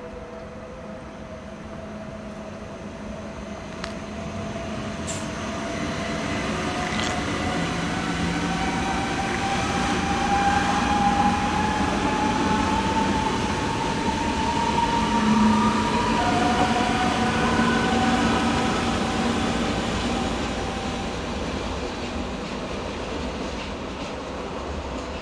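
ICE electric train pulling out of the station, its traction drive whining with a pitch that rises slowly as it gathers speed over running noise. It grows louder until about halfway through, then fades a little.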